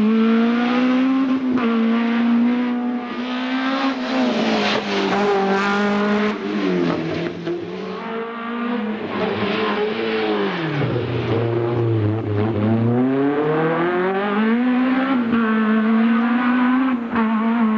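Peugeot 205 rally car's engine revving hard on a rally stage, its note climbing and falling several times as it changes gear. About ten seconds in the revs drop low for a couple of seconds, then climb again.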